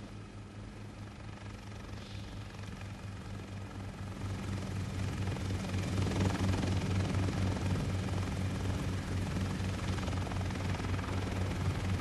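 Helicopter in flight: a steady low rotor and engine drone with a fine regular beat, growing louder over the first half.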